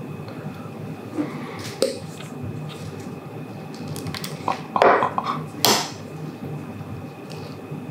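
Small tableware and food being handled on a table: a few light clicks, a short clatter about five seconds in and a sharp tap just after, over a faint steady hum.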